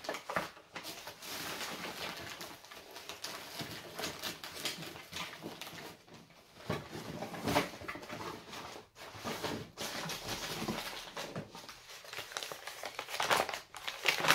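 Packing paper and a cardboard parcel box rustling and crinkling as items are dug out and unwrapped by hand, in irregular bursts with a few louder crinkles.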